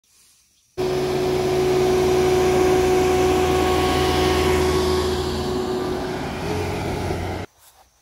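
Kubota ER470 combine harvester running: a steady diesel engine hum with machinery noise and a steady whine. It cuts in abruptly about a second in and cuts off abruptly near the end.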